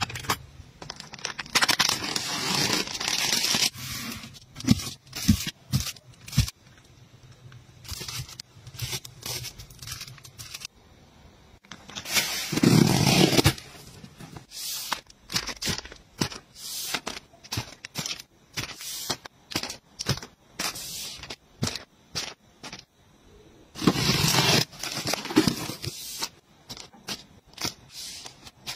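Handling of packaging: a cardboard box opened and plastic-wrapped packs of facial tissues rustling, scraping and set down, with many small knocks and clicks. There are three longer tearing, scraping stretches: near the start, about halfway through, and near the end.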